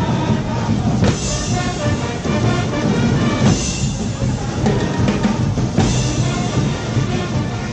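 Loud music with drums and brass, heavy in the bass, with a cymbal-like crash about every two and a half seconds.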